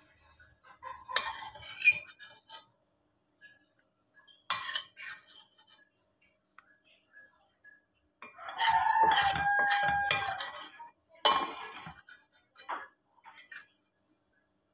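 A metal spoon clinking and scraping against a ceramic bowl while stirring eggplant in sambal, a few separate clinks. About eight seconds in comes the loudest sound, drawn out for about two seconds with a held tone.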